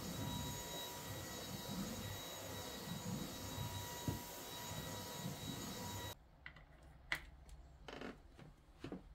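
Lubluelu cordless stick vacuum running, a steady rushing hum with a thin high whine. It cuts off about six seconds in, followed by a few light clicks and knocks as the vacuum sits on its wall mount and the charging cable is plugged in.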